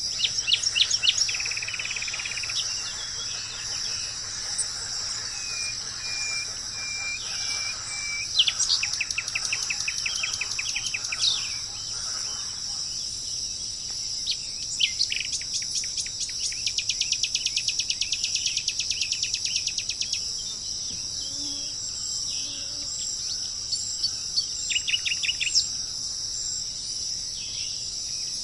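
A steady, high-pitched chorus of insects with songbirds singing over it: several rapid trills of repeated notes and some short held whistles.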